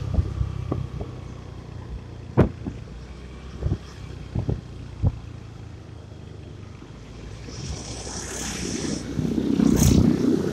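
Motor scooter riding in traffic, heard from the rider's seat: a steady low engine hum with a few sharp knocks in the first half and a louder rush of noise near the end.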